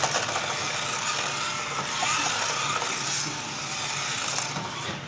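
Small toy RC car's electric drive motors and plastic gearing running with a steady whir as it drives along a carpet.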